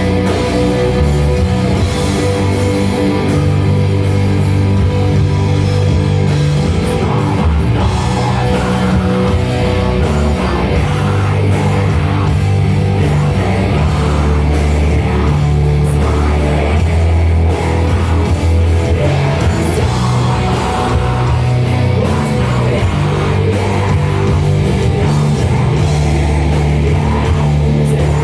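A heavy metal band playing live: electric guitars and a drum kit in a dense, loud, continuous passage.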